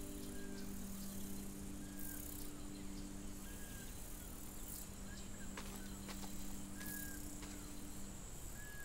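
Ambient film score: a low drone chord held steadily, with short high chirps repeating about every second and a half and a few faint clicks over a soft hiss. The drone fades out near the end.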